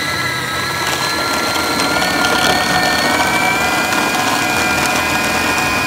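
Food processor motor running steadily with a high whine, its blade mixing raw lamb mince with spices, onion and herbs into a thick kebab paste.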